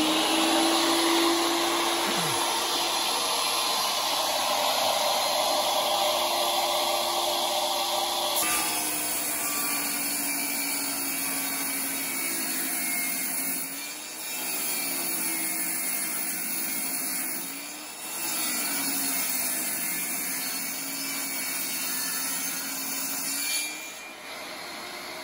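Portable benchtop table saw running and ripping a timber board lengthwise. The motor's pitch sags a couple of times as the blade takes load in the cut, and the saw winds down near the end.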